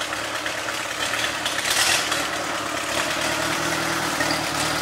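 Small vintage farm tractor's engine idling steadily, with a brief louder rush of noise about two seconds in.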